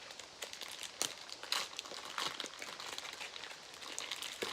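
Small plastic toy package crinkling and rustling as it is handled and opened, with irregular little crackles and clicks.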